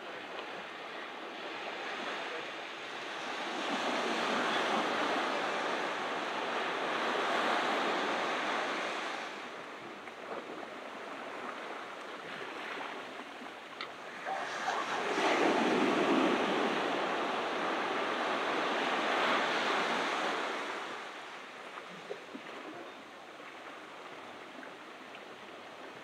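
Ocean surf breaking on a beach: two waves wash in, the first swelling about three seconds in and the second coming in more sharply about fifteen seconds in, each a rush of noise lasting several seconds before it ebbs away.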